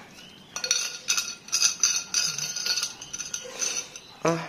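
Phu Quoc ridgeback puppy eating from a stainless steel bowl: its muzzle and teeth knock against the metal, giving a run of uneven clinks with a light ringing note, a few each second.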